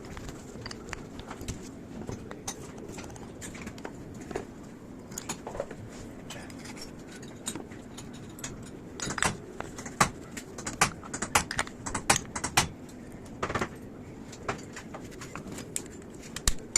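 Small metal parts and hand tools clinking and tapping, with scattered sharp clicks that come thick and fast for a few seconds in the middle.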